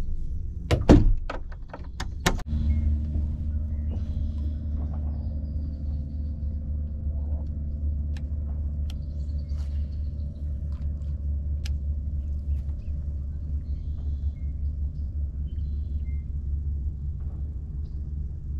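A boat's outboard engine running steadily with a low rumble, getting louder about two and a half seconds in. Several sharp clacks come in the first two seconds.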